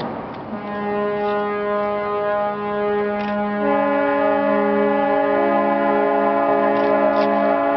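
Ship's horns blowing long steady blasts together, a salute to a ship launch. A second horn at a higher pitch joins about halfway through, and a third a little later, so the sound grows louder. A brief rush of noise comes at the very start.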